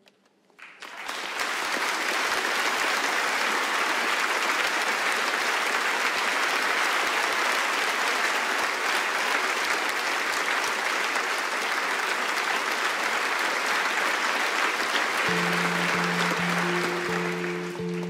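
Audience applauding steadily, swelling up within the first second or two. About fifteen seconds in, an electric guitar starts playing held notes under the applause as the next song begins.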